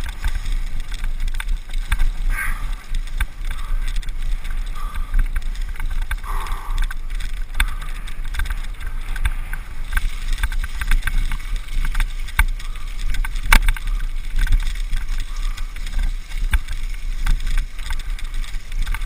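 Wind rumble on the microphone of a camera riding along a rutted, muddy track, with rattling knocks from the bumps, one sharper knock about two-thirds of the way through; no engine note is heard.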